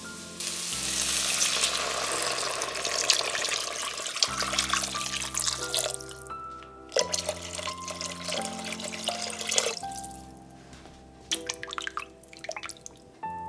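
About a litre of water pouring steadily into an enamelled cast-iron pot of sautéed vegetables, a rushing splash for about five seconds, over soft background music. Later come a few light clicks and drips as herbs are added.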